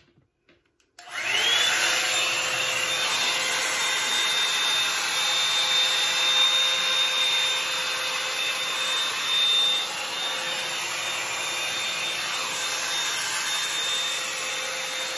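Bed Head Blow Out Freak hot-air volume drying brush switched on about a second in: its motor spins up with a brief rising whine, then runs steadily with a loud rush of blowing air and a constant high whine as it is worked through the hair.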